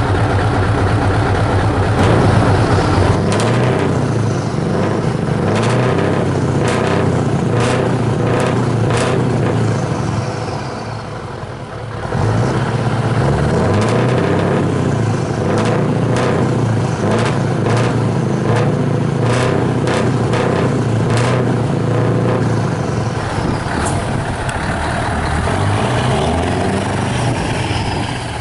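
Scania R500's V8 diesel running loud through a free-flowing exhaust pipe, its note rising and falling, easing off briefly about ten seconds in before picking up again.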